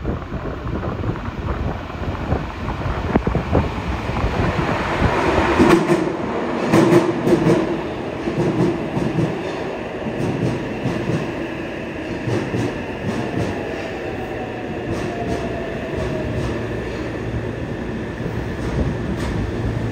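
Yokohama Municipal Subway Blue Line S-type train with a Mitsubishi IGBT-VVVF inverter pulling into an underground station. The rush of wheels and air swells about five seconds in, rail joints click, and the inverter's whine falls in pitch as the train slows.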